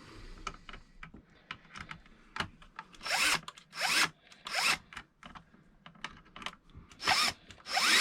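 Power drill-driver run in short bursts, each spin-up rising in pitch: three quick bursts about three seconds in and two more near the end, after a few small clicks and taps. Its clutch is set to the lowest setting so that it stops by itself.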